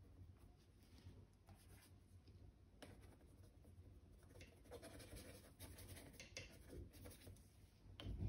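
Faint scratching of a small brush feathering oil paint onto a canvas, in short scattered strokes, with a soft knock near the end.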